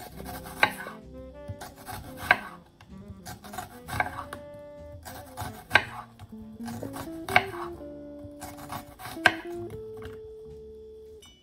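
Kitchen knife slicing a red onion on a wooden cutting board: a crisp cut through the onion layers ending in a sharp knock of the blade on the board, about six strokes a little under two seconds apart, stopping shortly before the end.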